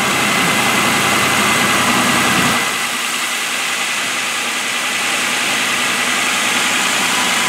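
2007 Ford Explorer's 4.0-litre single-overhead-cam V6 idling steadily with the hood open, about a minute after a cold start, running smoothly. A thin steady high tone sits over the engine noise, and the sound dips slightly about two and a half seconds in.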